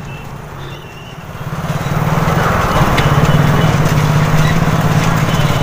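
A motor vehicle's engine running close by, growing louder about a second and a half in and then holding a steady hum.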